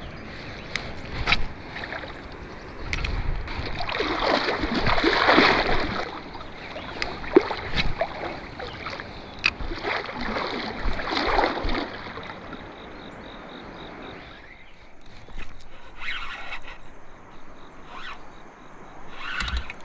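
Water and handling noises around a kayak: two swells of rushing, splashy noise a few seconds apart, over a steady background of moving water, with scattered small clicks and knocks.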